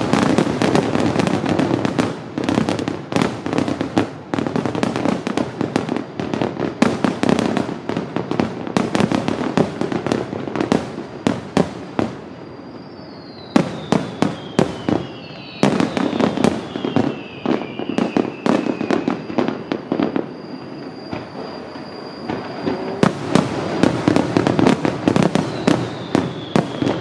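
Aerial fireworks shells bursting in rapid succession: a dense volley of loud bangs, easing briefly about halfway through. Falling whistles sound through the middle and again near the end.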